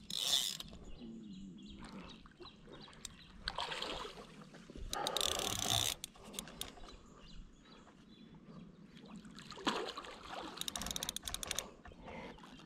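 Carp rod and large spinning reel being handled: short rustling, scraping handling noises, then a run of rapid clicking from the reel about ten seconds in.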